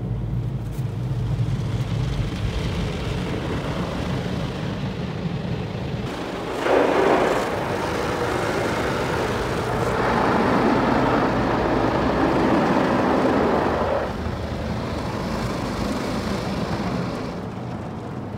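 Automatic car wash heard from inside the car: a steady low hum of the machinery, with water spray rushing against the car briefly about six and a half seconds in and again for about four seconds from ten seconds in.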